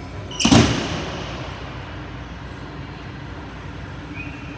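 A single hard punch landing on the punching bag of an arcade boxing machine, one sharp thump about half a second in that dies away within half a second. A steady electronic hum from the arcade runs underneath, and a higher steady tone starts near the end.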